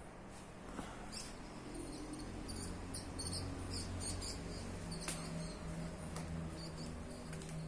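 Faint, irregular high-pitched animal chirps, many short ones scattered through, over a low steady hum.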